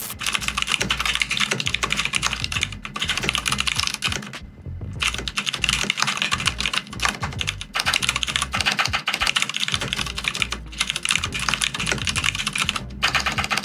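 Fast, continuous typing on a mechanical keyboard: a quick run of key clacks, with short pauses about four and a half seconds in and again near the end.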